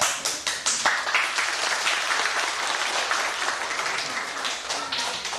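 Audience applauding: many hands clapping together in a dense patter.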